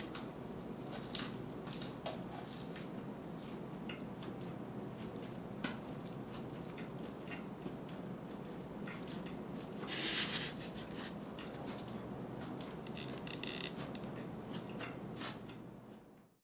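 Close-up handling of a nori-wrapped sushi roll over a plastic food tray: soft squishes, small clicks and rustles as the roll is held and pulled apart, with a louder crinkle about ten seconds in and a few more around thirteen seconds, over a steady low room hum. The sound fades out at the very end.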